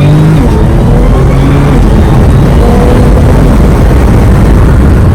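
2003 Mitsubishi Lancer Evolution's turbocharged four-cylinder running loud, its pitch rising briefly in the first second and then holding as a dense, steady rumble.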